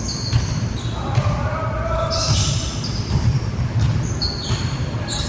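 Basketball game in a gym: many short, high shoe squeaks on the hardwood court over a ball being dribbled, with voices in the background.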